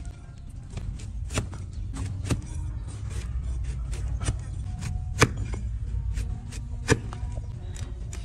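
A flat hoof knife pares and cracks through an overgrown donkey hoof, giving a string of sharp, irregular cracks and scrapes. The loudest come about five and seven seconds in, over a steady low rumble.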